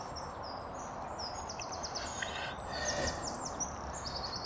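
Woodland birds singing: several runs of quick, high chirps and short trills over a steady background of outdoor noise.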